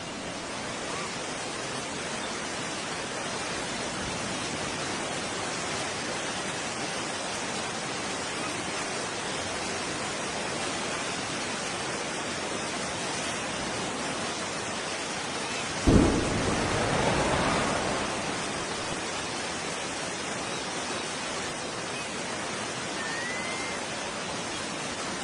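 Steady rushing noise, then a sudden deep explosion boom about two-thirds of the way through that dies away over about two seconds.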